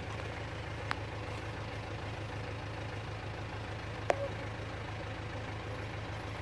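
Vehicle engine idling steadily with an even low hum, and two short clicks, about a second in and about four seconds in.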